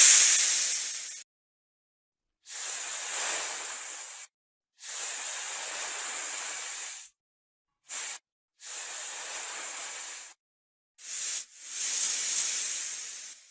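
Snake hissing: a string of separate hisses, most lasting one to two seconds, with a very short one about eight seconds in.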